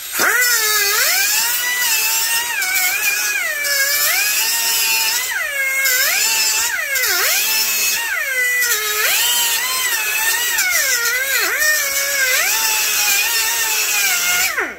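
Small angle grinder with a disc cutting a metal bracket off a chainsaw exhaust pipe. It spins up at the start, then its high whine sags in pitch each time the disc bites into the metal and climbs back as the pressure eases, several times over, before it shuts off near the end.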